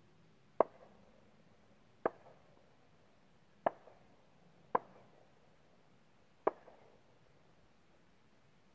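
Five gunshots from a Hi-Point .45 carbine fired about a mile away, sharp single cracks spaced unevenly, one to two seconds apart, each trailed by a short echo.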